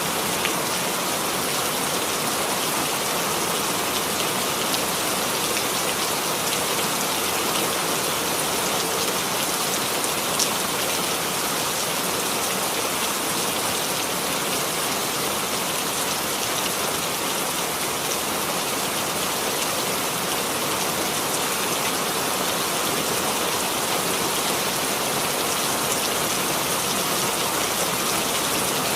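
Steady rain falling on a surface, a dense even patter of drops.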